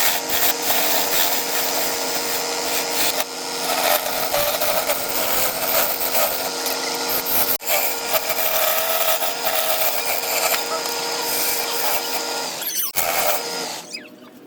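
Wood lathe running with a turning tool cutting into the spinning wood: a steady motor hum under a rough scraping hiss. It breaks off briefly twice and drops away near the end.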